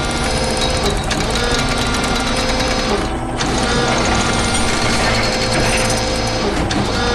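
Construction machine sound effect: a fast, steady mechanical clatter, with music underneath and a brief dip about three seconds in.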